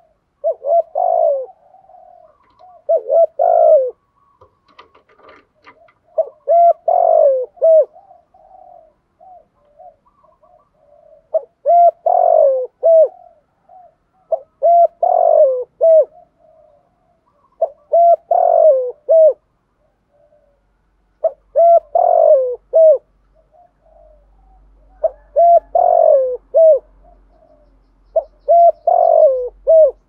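Spotted dove cooing: about nine repeated phrases of short, pitched coo notes, one every three to five seconds. It is the 'giọng thổ' coo that Vietnamese keepers play to get newly caught doves to coo back.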